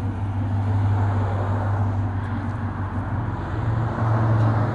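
Engine of a 1960s Chevrolet pickup truck idling steadily with an even, low hum.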